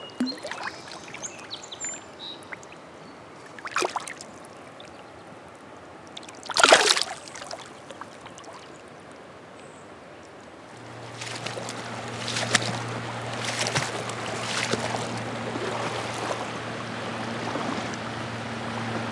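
Water splashing as a caught smallmouth bass is held in the shallow river and let go, with a few separate splashes, the loudest about seven seconds in. From about eleven seconds, sloshing steps of wading through the current, about one a second, over a steady low hum.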